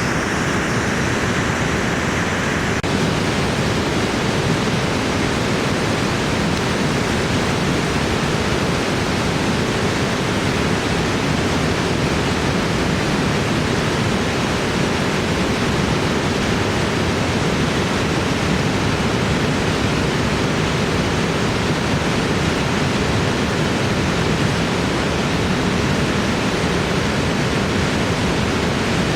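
Khone Phapheng Falls, a huge volume of Mekong water pouring over the rapids in a steady, loud rush.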